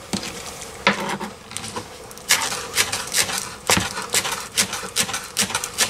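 Knife chopping scallion greens on a plastic cutting board: a few separate knocks, then from about two seconds in a quick run of chops, roughly three a second.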